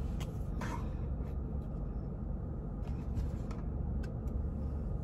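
Steady low hum inside a parked car's cabin, with a few faint clicks and rustles of movement.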